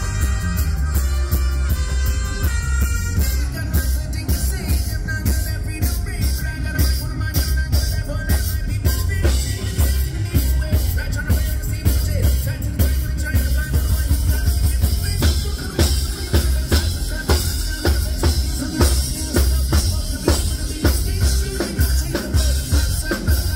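Live reggae-rock band playing with a male lead singer, electric guitars and bass, and a steady drum-kit beat about twice a second over heavy bass.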